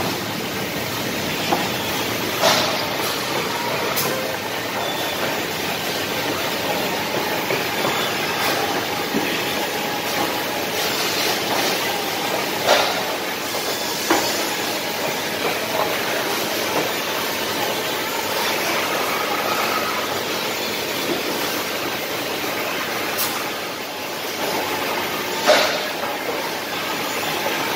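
Wood drilling machine running steadily, its bit boring holes in small wooden pieces, with a few sharp knocks along the way.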